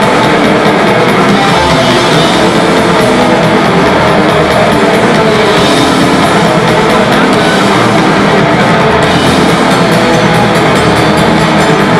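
Death metal band playing live, loud and unbroken: distorted electric guitars and bass over a drum kit.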